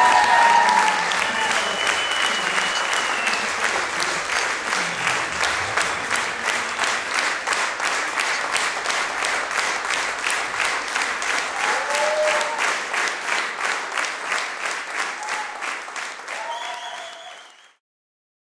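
Theatre audience applauding, settling into steady rhythmic unison clapping at about three claps a second, with a few voices calling out; the applause fades out near the end.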